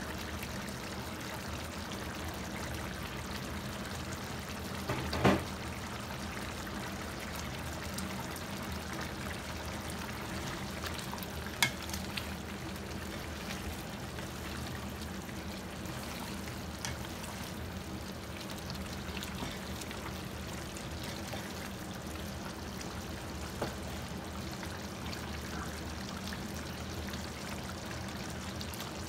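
Pork and pineapple adobo simmering and sizzling steadily in its sauce in a pan, stirred with a wooden slotted spatula. A sharp knock about five seconds in, the loudest sound, and a smaller one about twelve seconds in.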